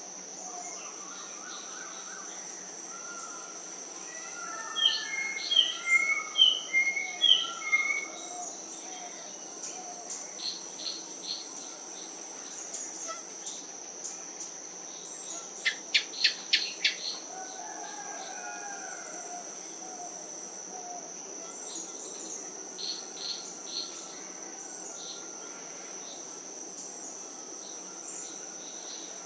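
Tropical wildlife ambience: a steady high insect drone, typical of crickets, with birds calling over it. There is a loud run of repeated calls about five seconds in, a rapid burst of sharp chips around the middle, and scattered softer calls.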